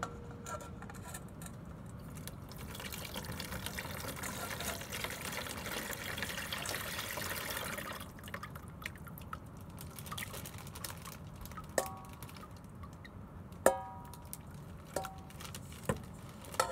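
Watery clay slurry poured from a stainless steel bowl through a metal strainer into a plastic tub, a steady trickling pour for several seconds. In the second half come a few sharp metal-on-metal clinks that ring briefly, as the bowl knocks against the strainer.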